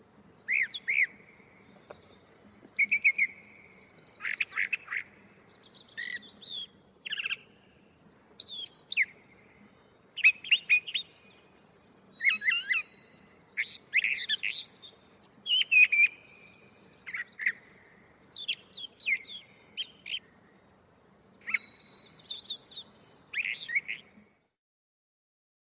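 Gray catbird chirping: a long run of short, varied squeaky phrases with brief pauses between them, stopping about a second before the end.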